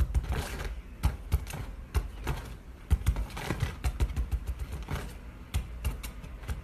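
A red squirrel bounding and scrabbling about on a fabric sofa, with a stick being waved at it: irregular soft thumps and sharp clicks as it lands, scrabbles and knocks against the stick.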